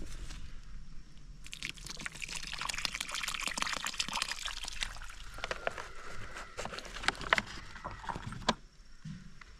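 Water being poured out, a steady splashing pour that starts about a second and a half in and stops shortly before the end.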